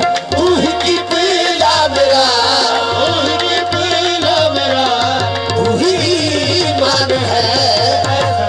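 Live qawwali: harmoniums holding the melody over a steady tabla beat, with a voice singing a wavering, ornamented line over them.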